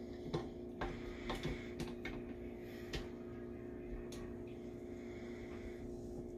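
Scattered clicks and light metal knocks as a tilt-head stand mixer is handled and its beater fitted, over a steady low hum.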